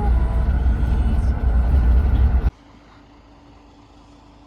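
Loud low rumbling noise that cuts off abruptly about two and a half seconds in, leaving a quiet steady hum.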